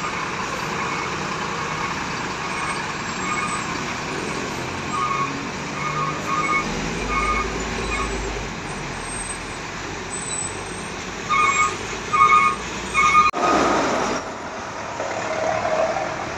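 Bus telolet horn, a musical air horn, sounding short repeated blasts over road traffic noise: quieter groups first, then three louder blasts near the end. A short burst of hiss follows the last blast.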